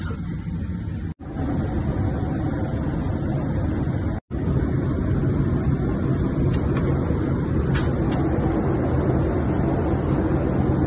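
Airliner cabin noise in flight: a steady low rush of engines and airflow, breaking off for an instant twice.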